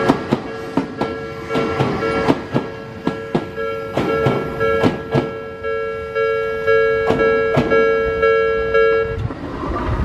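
A Japanese level-crossing warning bell rings in repeated electronic strokes while Odakyu commuter train wheels clatter over the rail joints. The bell stops about nine seconds in.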